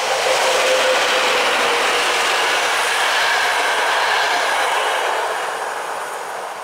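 A train made up of an EU07 electric locomotive, an SM42 diesel locomotive and two passenger coaches passing close by, with a loud steady rush of wheels on rail. The sound fades as the train moves away near the end.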